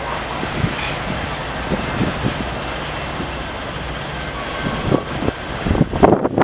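Freight train hopper cars rolling slowly past: a steady rumble of wheels on rail with scattered clanks, and a cluster of louder knocks about six seconds in.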